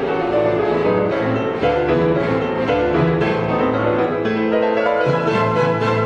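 Classical music for piano and orchestra, with the piano heard against bowed strings.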